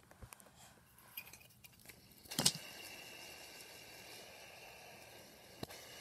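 Plastic fidget spinner handled with a few light clicks, then a sharp click about two and a half seconds in as it is set spinning, followed by a steady faint whir from its bearing.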